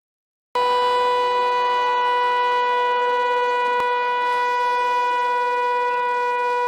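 A loud steady tone held on one unchanging pitch, starting abruptly about half a second in after dead silence.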